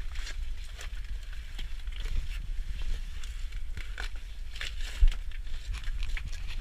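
Footsteps crunching and scuffing on loose rock and gravel: irregular knocks and scrapes over a steady low rumble, with one sharp bump about five seconds in.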